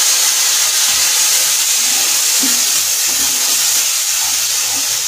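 Freshly added tomato puree sizzling in hot oil in a pan while being stirred with a wooden spatula: a loud, steady hiss of the masala frying.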